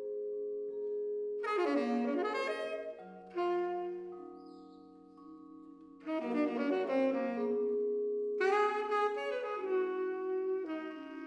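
Saxophone and vibraphone duo playing: the saxophone plays three phrases of held notes, starting about a second and a half in, about six seconds in and about eight seconds in, over long-ringing vibraphone chords.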